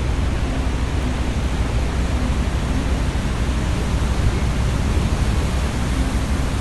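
A loud, steady rushing roar with a heavy low rumble, with no breaks or separate events.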